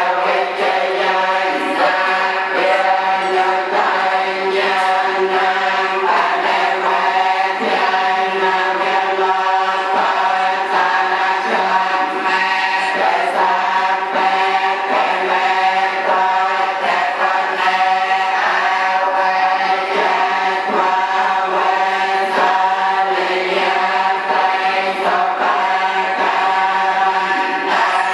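Buddhist litany chanted in Khmer temple style by a group of monks and lay worshippers: many voices reciting together on a near-steady, droning pitch with an even syllable beat.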